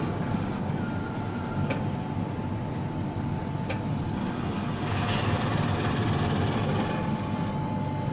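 Vending machine's robotic delivery lift at work: a short motor whine and sharp mechanical clicks as it moves, then a louder hissing stretch about five seconds in as the boxed item is taken onto the lift, over a steady low rumble.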